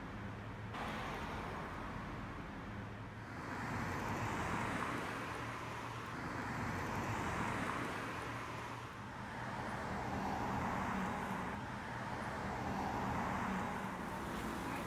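Road traffic: cars passing one after another, their tyre and engine noise swelling and fading in several waves.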